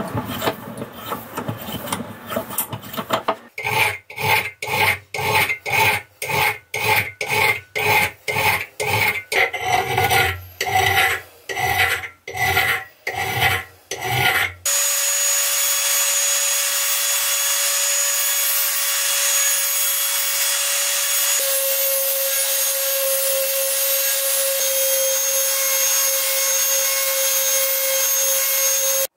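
A hand file rasping on the steel shank of a vintage screwdriver in even back-and-forth strokes, about one and a half a second. About halfway through, this gives way suddenly to the steady high whine of a small rotary tool with a sanding drum grinding the steel blade tip.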